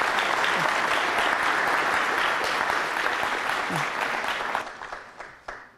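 Audience applauding steadily, then thinning out over the last second or so and stopping with a single final clap near the end.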